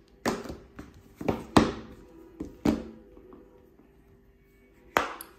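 Smartphones knocking against a wooden tabletop as they are set down and handled: several sharp knocks in the first three seconds, two of them close together, and another near the end, over a faint steady tone.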